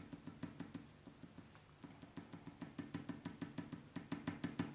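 Felt-tip marker tapped rapidly against paper, dotting in a pattern: a faint run of quick taps, several a second, coming faster after about two seconds.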